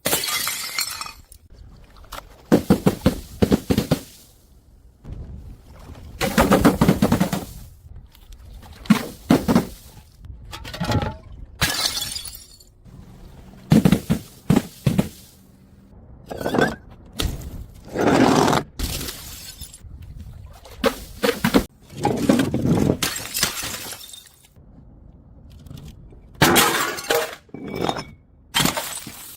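Glass bottles breaking one after another: a long run of separate sharp smashes, each followed by a brief crunch and tinkle of shards.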